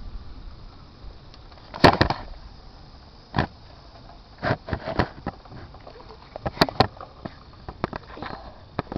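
Small Meccano toy steam engine running unevenly, a steady low hiss broken by irregular clicks and knocks a second or more apart rather than a regular beat; the engine is not running well.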